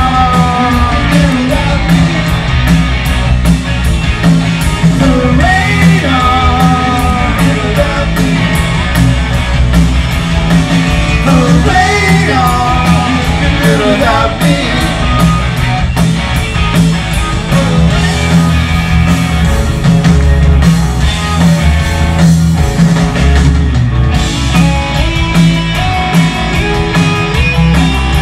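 Rock band playing live and loud: electric guitars, bass and drums with a steady beat, a male lead vocal singing through the first half, then the band carrying on without the voice.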